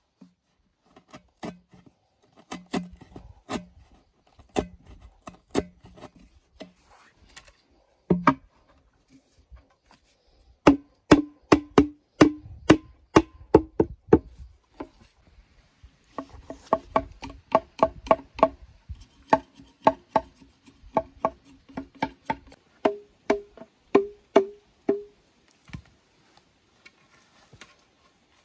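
Hollow bamboo being struck in quick runs of sharp knocks, about three to four a second, each knock ringing with a short hollow tone; the tone steps higher about three-quarters of the way through.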